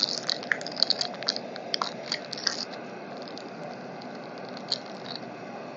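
Bars of soap frying in a kadhai of hot refined oil: dense crackling and popping for the first couple of seconds, then a steady, quieter sizzle with one sharp pop near the end.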